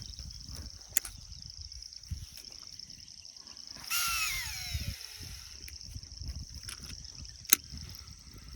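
Insects chirring steadily in a high band, with a sharp click about a second in, a short rush of noise carrying a falling whistle around the middle, and a loud sharp click near the end.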